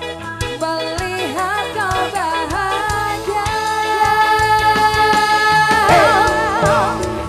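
Live campursari music: a woman sings over a band with drum kit, electric guitar and kendang. Her voice comes in about a second in and holds long notes with a wide vibrato.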